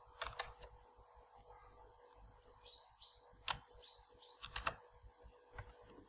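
A few sharp, scattered clicks of a computer keyboard and mouse, with faint bird chirps in the background.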